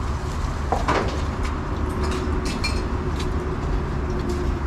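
Steady low rumble with scattered light clicks and knocks of metal parts being handled on a bare V8 engine block, and a faint steady hum in the background.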